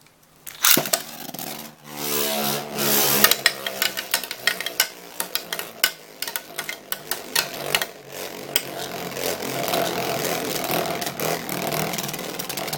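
A Storm Capricorn metal Beyblade is launched with a whirring ripcord launcher, then spins and hops across a plastic stadium floor, rattling and clicking steadily as it goes.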